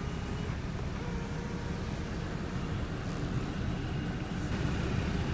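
Steady low rumble of an idling car engine.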